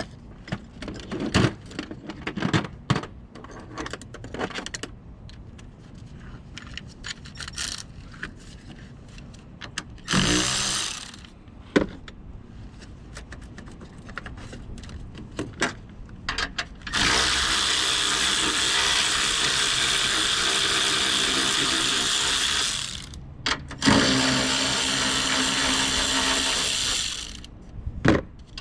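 Handheld power tool motor running in bursts: a short spin that winds down, then two longer steady runs of several seconds each, with tool clicks and clanks between them.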